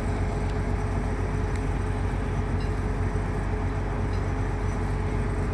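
Heavy diesel engines of mobile cranes running steadily during a tandem lift, a constant low drone with a thin steady whine above it.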